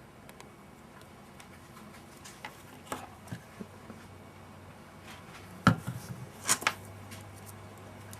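Light clicks and taps of a plastic piano keycap and glue bottle being handled while glue is spread inside the cap, with a sharper knock past the middle and two quick clicks just after it.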